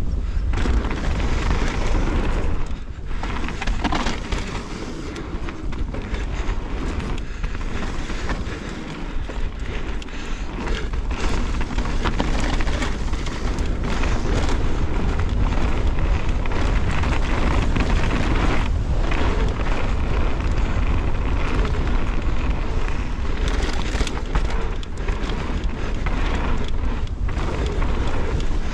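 Wind rushing over an action-camera microphone, mixed with mountain-bike tyres rolling fast over gravel and dirt and the rattle of the bike on rough ground. The rumble dips briefly a few times early on and gets louder and steadier after about twelve seconds.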